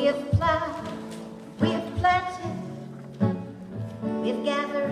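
A folk song sung by a woman over strummed acoustic guitar, with long held notes between the strums.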